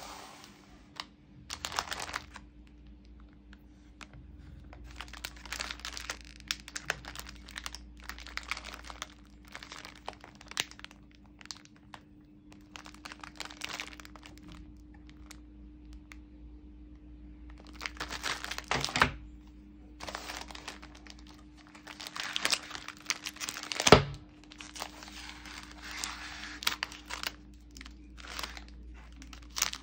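Plastic wrapper of a Parle-G biscuit pack crinkling in bursts as it is handled and turned over, with two sharper cracks, the louder one about four-fifths of the way in.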